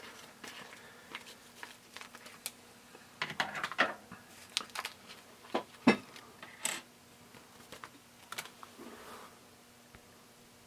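Scattered light clicks and taps of tools and small parts being handled on a soldering bench, busiest toward the middle, over a faint steady hum.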